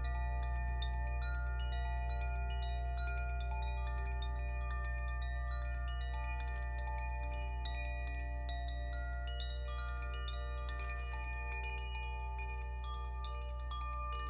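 Zaphir Sufi chime, a hand-held tube chime, swayed gently so that its clapper strikes the tuned rods inside, making a continuous run of bright, overlapping tinkling notes. Beneath it, long ringing tones and a steady low hum hold on.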